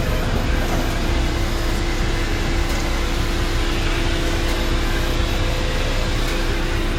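HGV's diesel engine running steadily with a constant hum.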